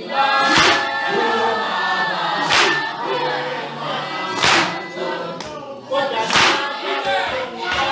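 A group of voices singing a Zulu traditional dance song together, with a loud sharp beat about every two seconds.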